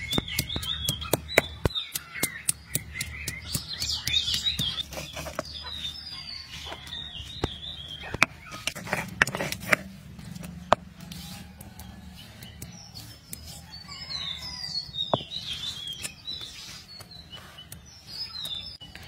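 Stone pestle knocking and crushing on a flat grinding stone (sil-batta) as garlic and ginger are pounded into a paste: sharp stone-on-stone taps in irregular clusters. Birds chirp in between.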